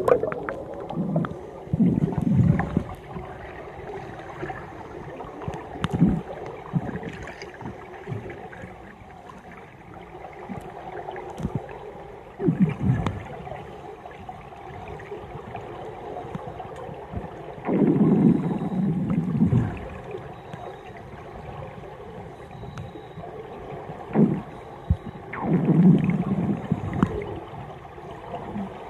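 Underwater sound in a pool: bursts of scuba divers' exhaled bubbles from their regulators, rumbling and gurgling every few seconds, the longest about 18 and 26 seconds in, over a steady underwater hiss.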